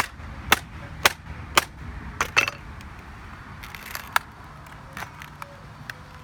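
Hammer blows striking a MacBook's keyboard, sharp impacts about two a second at first, then a quick double strike, then fewer, lighter knocks. The keys are taking the worst of it and being knocked loose.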